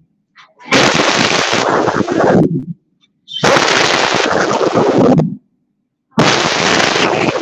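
A large group of schoolchildren reciting a Hungarian poem in unison, harsh and distorted from overloading the microphone. The recitation comes in three phrases of about two seconds each, with short pauses between them.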